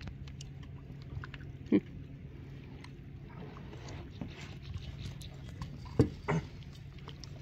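A small channel catfish being handled in a landing net: scattered clicks, knocks and rustles of the net and hands. Short, louder low sounds come about two seconds in and twice more around six seconds, over a steady low hum.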